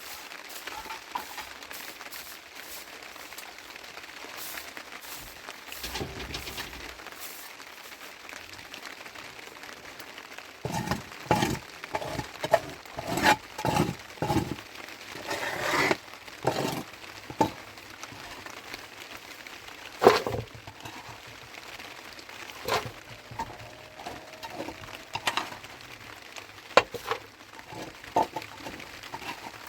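A series of sharp cracks and knocks, coming in irregular clusters from about a third of the way in, with the loudest single crack about two-thirds through.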